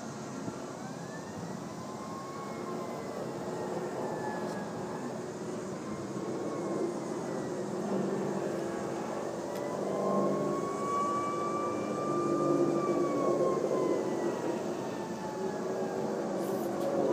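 A siren wailing slowly up and down twice over a steady rumble of outdoor traffic noise. The rumble grows louder about halfway through.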